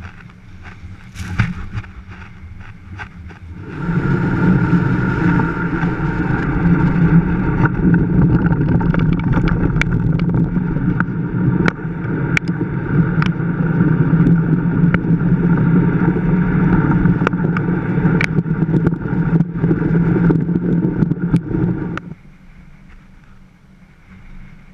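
A blokart land yacht running at speed on hard sand: a steady rush of wind over the microphone and tyre rumble, with frequent sharp ticks. The rush starts a few seconds in and drops away suddenly near the end, leaving a quieter wind hiss.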